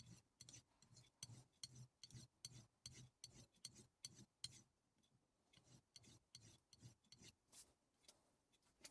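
Global G-48 santoku blade being stropped on a strop: faint, quick strokes, several a second, with a pause of about a second midway, the final edge-refining step after the whetstones.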